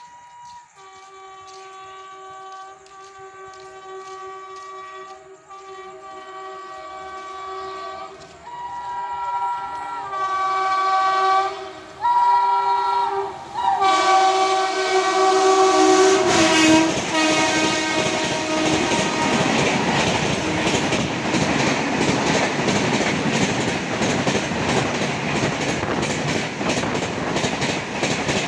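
WAP-7 electric locomotive horn blowing long, repeated blasts as the train approaches at high speed (about 133 km/h), growing steadily louder and dropping in pitch as the locomotive passes about halfway through. The coaches then rush past with a dense clickety-clack of wheels over rail joints.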